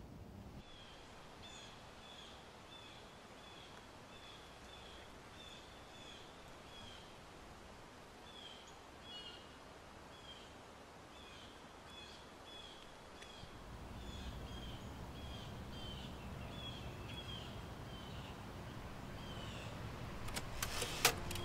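A small bird chirping over and over, short high chirps about two a second, against quiet outdoor background. A low steady rumble comes in about two-thirds of the way through, and a quick run of sharp clicks sounds near the end.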